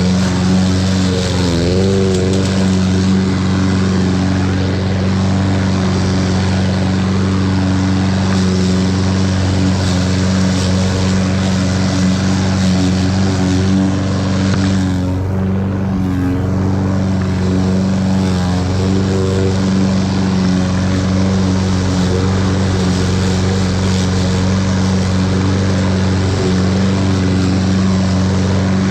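Toro 21-inch walk-behind lawn mower engine running steadily under load while cutting grass, with a continuous hum and the rush of the blade and clippings.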